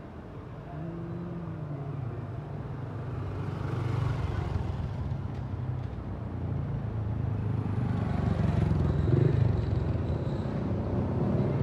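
A motor vehicle engine running in the street, a low rumble that grows steadily louder over several seconds.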